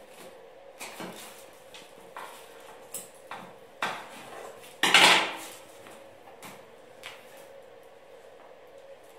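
Scissors cutting into a fabric back brace, with the handling of the brace on a table: a series of short clicks and knocks, and one much louder noise lasting about half a second, about five seconds in.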